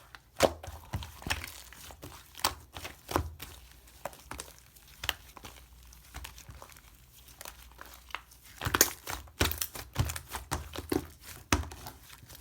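Crinkling, rustling and small clicks from hands handling slime containers and their plastic packaging during a slime-box unboxing. The sounds come in irregular bursts, busiest a little past halfway.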